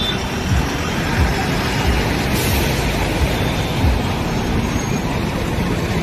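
Traffic wading through a flooded street: a steady wash of water sloshing and splashing around the wheels, mixed with road noise, with low gusts of wind buffeting the microphone.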